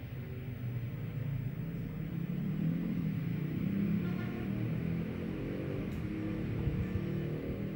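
A low, steady rumbling drone with faint held low notes that shift slowly: the soundtrack under a film's opening studio logo.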